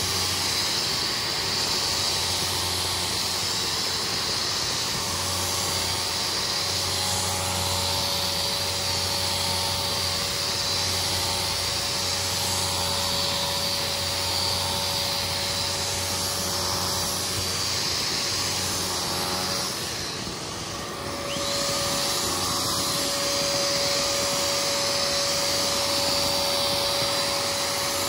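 Motor of a carpet-cleaning machine running steadily with a held whine. It drops briefly about twenty seconds in, then runs on.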